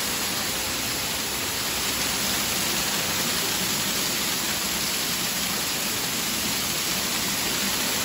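Waterfall in heavy flow, its water falling close by onto rocks and a pool: a steady, unbroken rush and splash of water.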